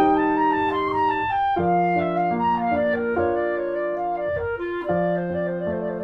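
Instrumental background music: a melody of held notes over sustained chords.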